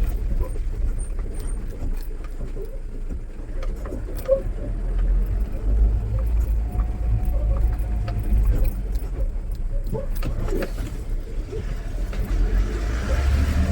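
Mahindra Bolero Pickup's diesel engine running at low revs in the cab on a rough off-road track, a steady low rumble with frequent small rattles and knocks from the body and loose items as it bumps along.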